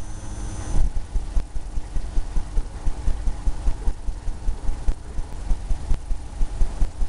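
Paintbrush working oil paint onto a canvas on its easel: a steady run of dull, low knocks, about three a second, with a brief brighter scrape of bristles in the first second.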